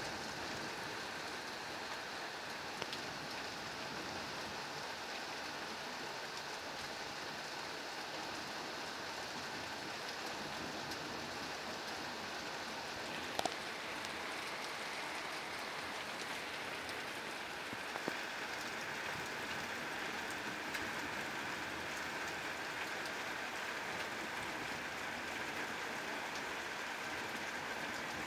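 Steady, unbroken rushing noise of a night storm that does not let up, with a few faint clicks. The recorders call it a constant sound that doesn't stop and take it for continuous thunder.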